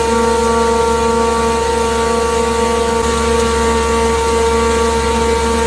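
A 5-ply corrugated cardboard production line running: a steady mechanical drone with several held whining tones over a constant low hum.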